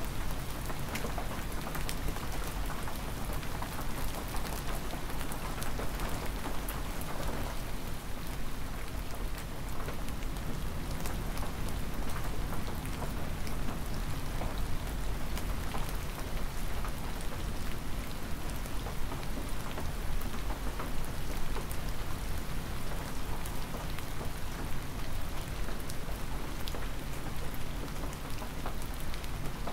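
Cold, hard spring rain falling steadily, with many individual drops ticking sharply on nearby surfaces.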